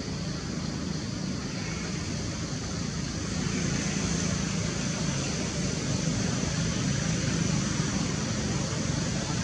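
Steady rumble of road traffic, growing louder about three and a half seconds in.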